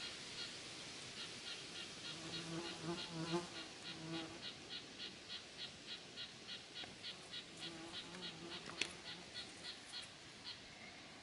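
Faint, regular chirping from a small animal: short high chirps about three a second, thinning out near the end. A lower pitched call sounds in between, about two seconds in and again around eight seconds.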